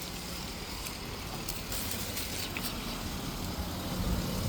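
Road traffic running steadily, with a low rumble and a few faint ticks.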